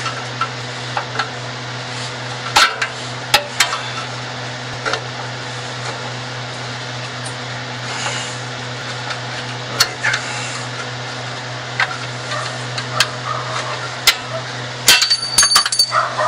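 Scattered metallic clicks and knocks of a hand cutter and tools working on the sheet-metal deflector of a car's exhaust, with a quick cluster of clinks near the end, over a steady low hum.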